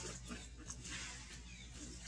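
Monkeys moving around a tree root: a sharp click right at the start, then light rustling and a few faint, short high squeaks.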